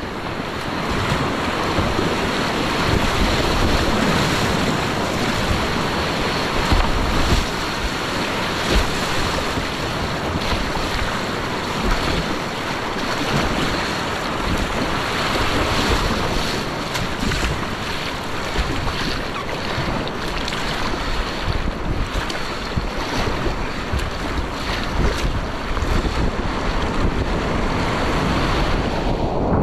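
Whitewater rapids on a steep creek rushing steadily and loudly, with wind buffeting the microphone.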